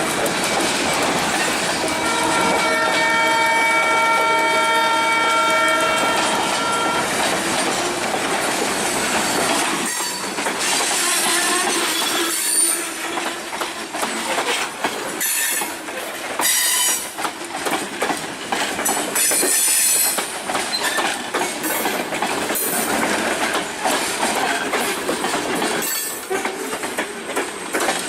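Freight train passing: the locomotive's horn sounds one held chord for about five seconds near the start, then the cars roll by with wheels clicking over rail joints and bursts of high wheel squeal.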